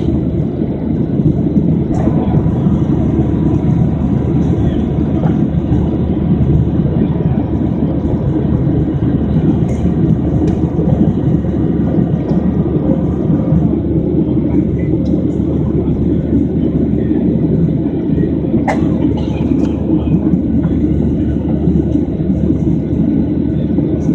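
Steady drone of a Boeing 737's jet engines and rushing air, heard inside the passenger cabin by the wing during the climb after takeoff. It stays loud and even, with a faint thin whine in the first half.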